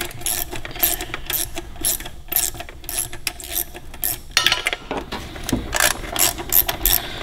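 Socket ratchet clicking in uneven runs as it turns the captive bolts on the coil cover of a GM HEI distributor, with a short pause about four seconds in.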